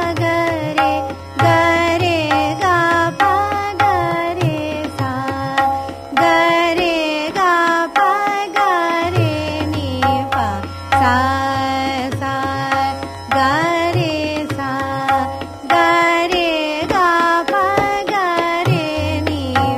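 Hindustani classical music: a string instrument plays the Raag Hansdhwani swar malika in a brisk run of separate notes, many with gliding pitch, with tabla accompaniment in teentaal at medium tempo.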